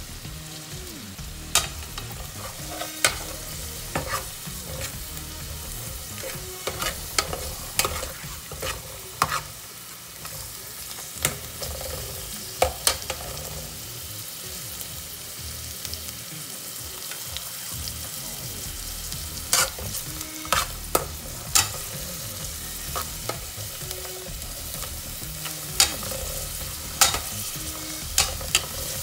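Chopped fresh coriander and garlic sizzling in hot oil in a metal pot, stirred with a metal spatula that clicks and scrapes against the pot every second or so at irregular intervals.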